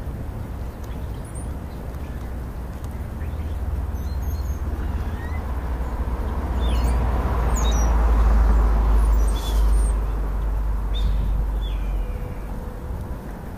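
A vehicle passing on a road, its noise swelling to loudest about eight seconds in and fading again over a steady low rumble. A few brief high bird chirps sound through it.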